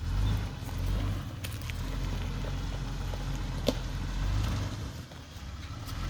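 2001 Jeep TJ's engine running at low speed while crawling an off-road trail, a low rumble that swells and eases a few times. Scattered light clicks and knocks ride over it, with one sharp click about halfway through.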